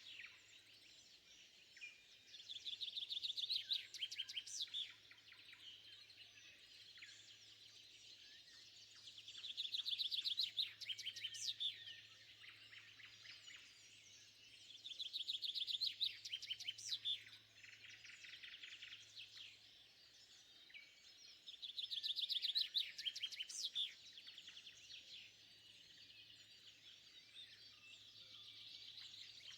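Woodland songbirds singing at dawn. One bird repeats loud phrases of rapid, trilled notes about every six seconds, each phrase lasting two to three seconds, with softer song from other birds between the phrases. A faint steady low hum lies underneath.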